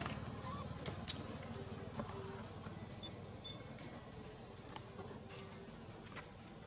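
A short, high, rising chirp repeated about every second and a half, with a few faint clicks, over quiet outdoor background sound.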